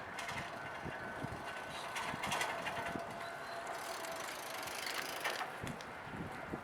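Nankai Kada Line train passing over a level crossing, its wheels knocking and clacking over the rail joints, with a louder rush of hiss about four seconds in. Two steady tones, typical of a Japanese crossing warning bell ringing, run underneath.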